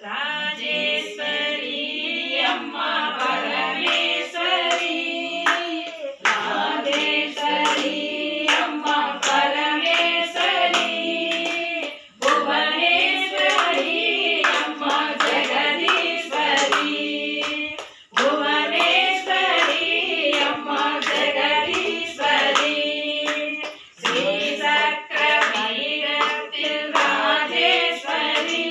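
A group of women singing a Hindu devotional bhajan together, clapping their hands in time. The song goes in phrases, with a brief pause about every six seconds.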